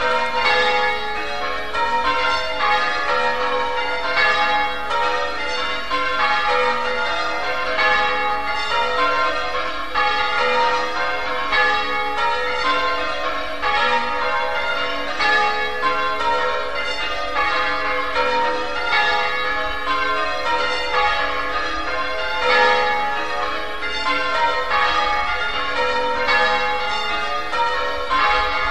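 Church tower bells change ringing: a ring of bells struck one after another in a continuous, evenly paced sequence, the order of the notes shifting as it goes.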